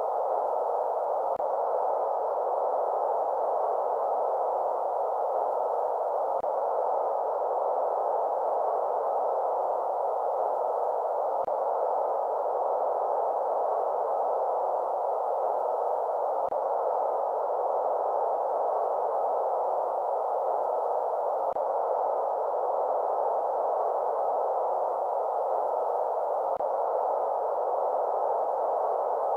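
Steady sleep-aid white noise, a constant mid-pitched hiss without tone or rhythm, with a faint click about every five seconds.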